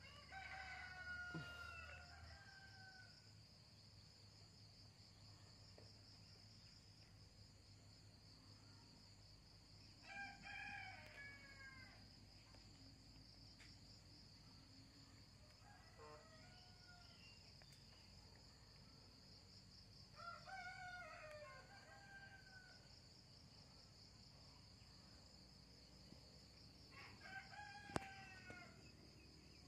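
Faint roosters crowing, five crows a few seconds apart, over a steady high-pitched insect trill. A single sharp click sounds near the end.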